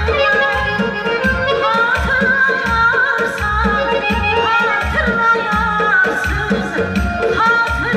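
A woman singing into a handheld microphone, a gliding, ornamented melody, over instrumental backing with a steady low drumbeat.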